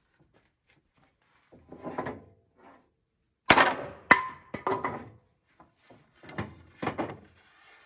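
Wooden knocks and thunks as a glued joint of an old cherry bed frame is worked apart, the two loudest knocks about half a second apart near the middle. The old glue gives way easily.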